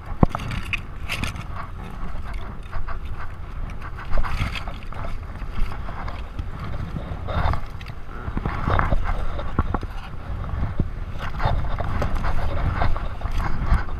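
Steady low rumble of a boat underway, with scattered knocks and scrapes on top.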